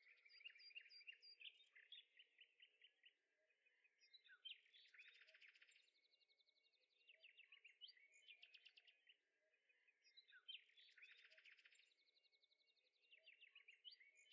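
Faint birdsong: small birds chirping in rapid, repeated trills and phrases, with a faint steady hum underneath.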